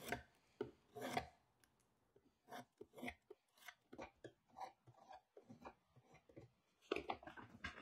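Faint, short, irregular strokes of a hand tool cutting into dense spotty gum wood, with a quick run of strokes near the end.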